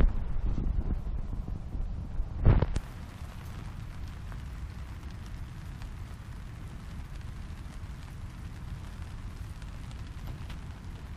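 Wind buffeting the microphone: a steady low rumble, heavier over the first few seconds, with a sharp thump about two and a half seconds in.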